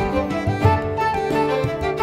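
Background music with violin-like bowed strings over a steady low beat.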